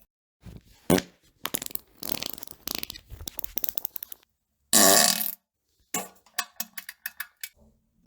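A run of fart sounds: a couple of short blasts, then a long sputtering stretch of rapid pops, one loud drawn-out fart about five seconds in, and a few short ones after it.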